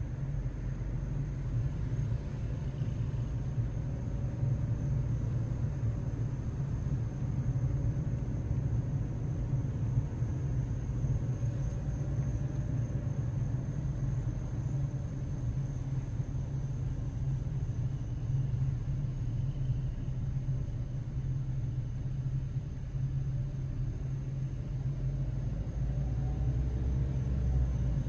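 A car's engine and road noise heard from inside the cabin while driving: a steady low rumble that holds an even level throughout.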